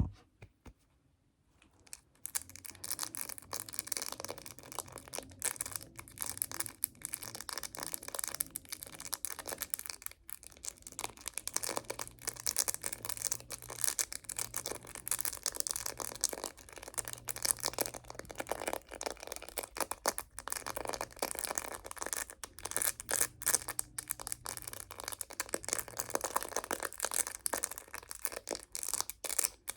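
Rapid, irregular tapping on a phone case, starting about two seconds in and running on as a dense stream of sharp taps.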